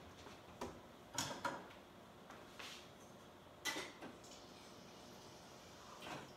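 A few faint, scattered knocks and clicks, about half a dozen, of things being handled off to the side in a kitchen, such as a cupboard or drawer and dishes.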